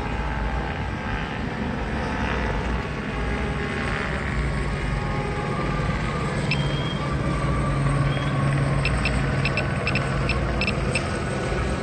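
Steady low engine hum with outdoor background noise, growing a little louder past the middle. A quick run of short high ticks comes near the end.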